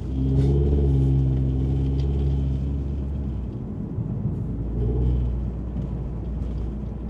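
Toyota Camry four-cylinder engine and Magnaflow 19494 cat-back exhaust heard from inside the cabin while driving: a steady low engine note, louder for the first few seconds, then easing off and swelling again briefly about five seconds in. The owner finds the cabin drone basically nothing.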